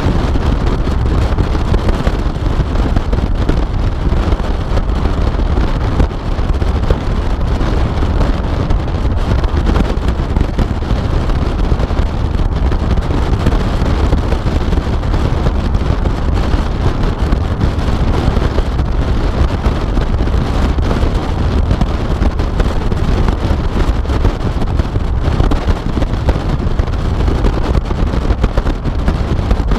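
Car driving at speed, heard from a rear-mounted GoPro: steady wind buffeting on the microphone over road and vehicle noise, with no distinct engine note or events.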